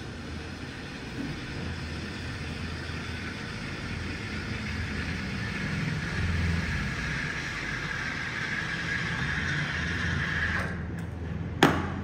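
Rocket espresso machine's steam wand hissing in a pitcher of milk as it is steamed, the hiss growing louder before it is shut off abruptly near the end. A single sharp knock follows just after.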